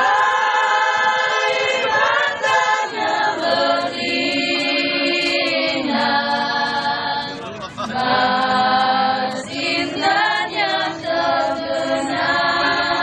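A group of people singing together, a slow song in long held notes, with the phrases breaking about every two seconds.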